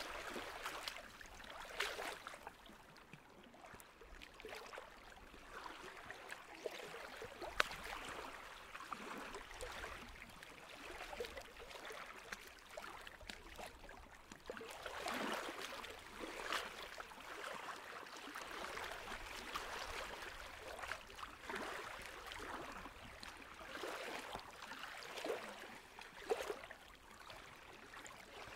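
Water flowing and gurgling, with an irregular rise and fall and a few small sharp clicks.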